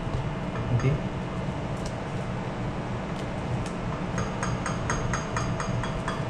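Steady low hum of a ship's machinery, with a quick run of light clicks, about five a second, in the last two seconds.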